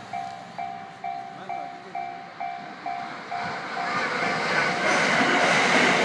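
Japanese level-crossing bell ringing about twice a second, fading out after about three seconds under the rising noise of the Thunderbird limited express electric train, which passes loudly from about four seconds in with wheels clattering on the rails.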